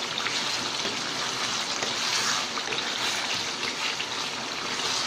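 Potato curry (aloo dum) gravy sizzling and bubbling steadily in a nonstick pan, stirred with a wooden spatula.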